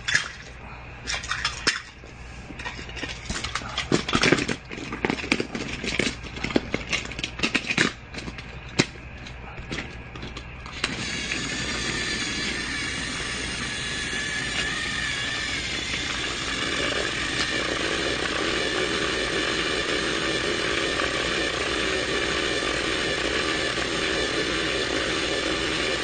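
Irregular clicks and knocks for about eleven seconds, then a small motor starts up and runs steadily.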